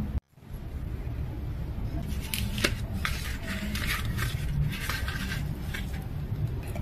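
Kitchen utensils and dishes clinking and scraping as food is dished up. Scattered light clicks and scrapes play over a low steady hum.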